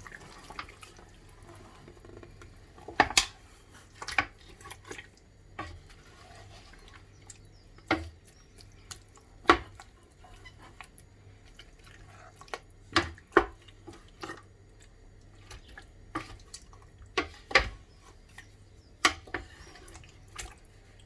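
Irregular clinks and knocks of a utensil against a cooking pot, with liquid dripping and splashing, as reserved chicken broth is added back into a tomato-sauce chicken stew.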